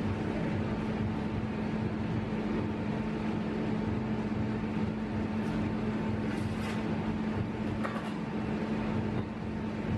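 Steady mechanical hum with a constant low tone and a fainter higher one, joined by a few faint light ticks around the middle.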